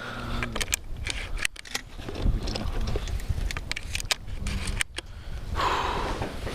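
Wind buffeting the microphone in a steady low rumble, with many scattered sharp clicks and rustles of gear being handled.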